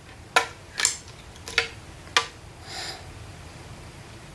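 A 3.5-inch hard drive being fitted into its drive casing: four sharp clicks and taps as its pins are lined up with the holes in the casing, then a short soft scrape near three seconds in.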